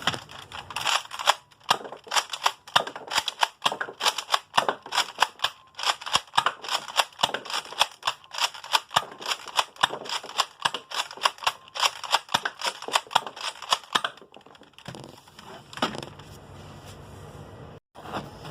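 Nerf foam-dart blasters being primed and fired over and over: a fast run of sharp plastic clacks, several a second. The clacks stop about fourteen seconds in, followed by a few scattered clicks.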